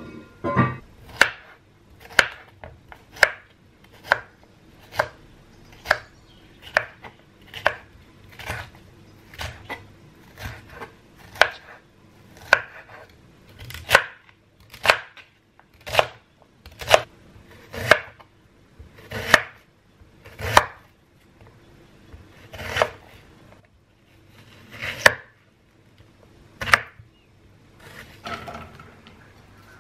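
Chef's knife chopping bell peppers and onion on a wooden cutting board: sharp knocks of the blade on the board, about one a second, spacing out near the end.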